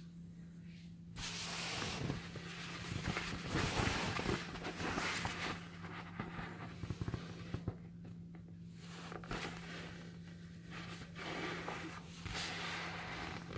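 Inflated vinyl beach balls being handled and turned by hand: irregular rustling and rubbing of the plastic skin with a few small clicks, over a steady low hum.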